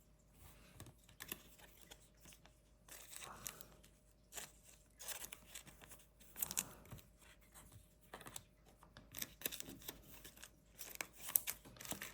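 Trading card packaging being handled: short, scattered bouts of tearing and crinkling from the plastic pack wrappers and box, with light clicks of the cards.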